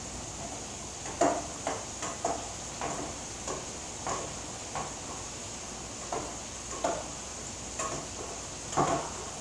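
A spoon stirring rice in a pot, making about a dozen short scrapes and knocks against the pot at an uneven pace, over a steady sizzle of pork chops frying in a skillet.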